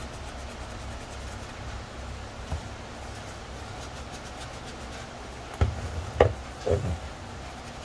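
Fine sanding sponge rubbing over a plastic helmet shell. About five and a half seconds in come three quick knocks, the helmet being set down and shifted on the plastic-sheeted bench.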